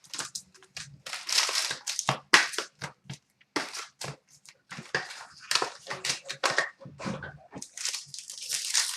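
Trading-card packs and their wrapping being torn open and crinkled, in a run of irregular rustles and rips.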